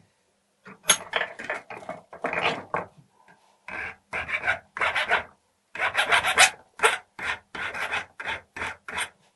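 Hand file rasping over metal in quick back-and-forth strokes, about three a second, with brief pauses: a rivet head that sat proud, not properly countersunk, is being filed flush.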